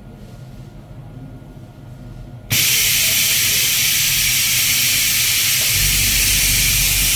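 Compressed air hissing loudly and steadily from a COF/ACF panel bonding machine, cutting in abruptly about two and a half seconds in over the machine's low hum, which grows louder near the end.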